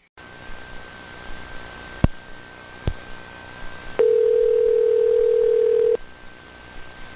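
Telephone line audio: an open, hissing line with two clicks, then a steady two-second telephone ringing tone (ringback) about four seconds in.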